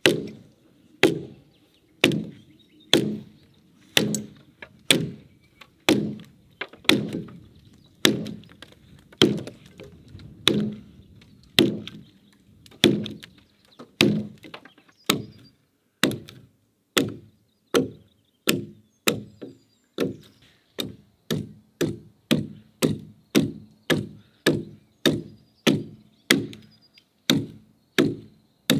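Axe chopping into a peeled log, cutting out a notch, each blow a sharp woody chop. The strokes come about once a second at first and quicken to nearly two a second in the second half.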